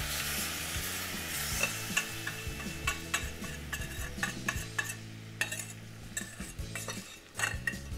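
Hot melted chocolate sauce being poured from a stainless-steel saucepan into a steel mixing bowl of puffed rice and nuts, a small whisk scraping and clinking against the pan. A hiss from the bowl fades away over the first few seconds.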